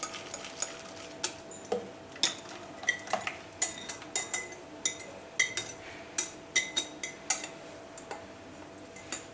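Metal utensil clinking and tapping against a clay pot while stirring lumps into a yogurt and jaggery mixture, in irregular strokes with a brief ring on some, fewer near the end.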